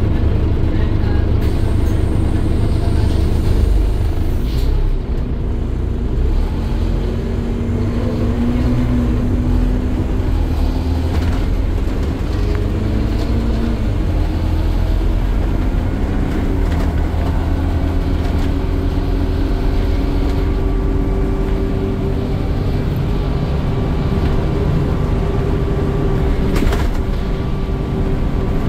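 Scania N230UD double-decker bus heard from inside the lower deck, its five-cylinder diesel pulling away from a stop and running on at speed. A low engine rumble runs under a whine that climbs in pitch several times as the bus gathers speed, with a few brief rattles from the body.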